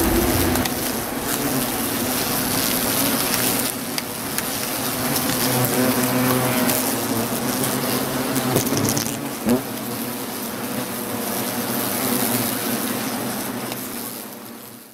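Hornets buzzing as they fly around their paper nest, a wavering wingbeat drone that rises and falls in pitch as they come and go, with one louder pass close by about nine and a half seconds in.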